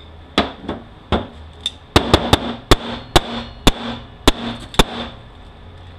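About a dozen sharp metallic knocks, roughly half a second apart and loudest in the middle, as a steel clutch drum from a 4F27E automatic transaxle is tapped and worked apart by hand to free its piston.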